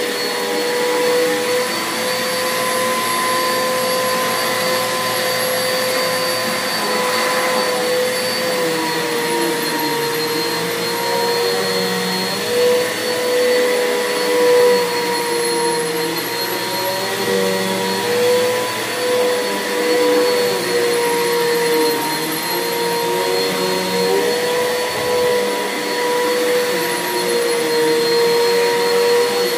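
Bissell 6583 vacuum cleaner running steadily as it is pushed over carpet, its motor giving a constant whine that wavers slightly in pitch.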